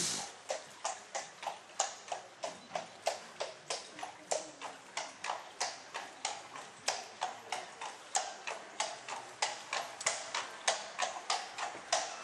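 Horse's hooves clip-clopping at a steady walk, about three beats a second.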